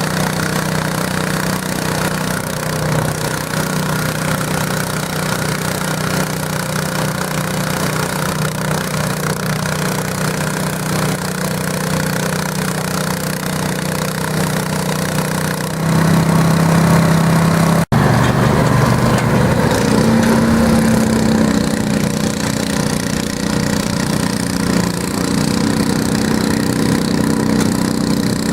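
Garden tractor engine running steadily. It grows louder a little over halfway in, then breaks off for an instant and resumes with a different, higher note.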